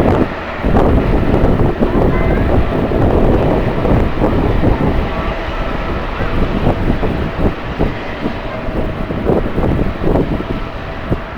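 Jet airliner engines running, with a faint steady whine, under heavy gusty wind buffeting the microphone.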